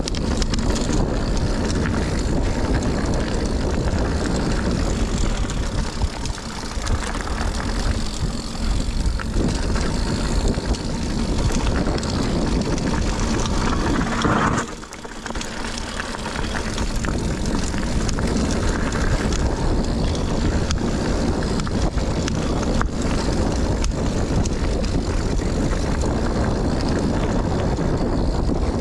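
Wind rushing over the action camera's microphone during a mountain-bike descent, mixed with tyres rolling over dirt and the rattle of a Scott Ransom 910 full-suspension bike over rough ground. The noise drops briefly about halfway through.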